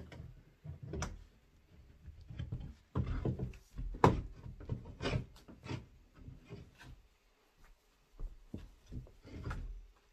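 Inch-and-a-half PVC pipe and fittings being pushed and dry-fitted against the inside wall of an OSB whelping box: irregular knocks, clunks and rubbing of plastic on wood, the loudest about four seconds in.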